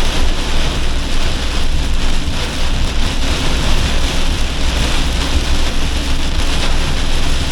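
Torrential rain beating steadily on a campervan's roof and windscreen, heard from inside the cab. Under it runs the van's steady low rumble as it drives slowly along a flooded road.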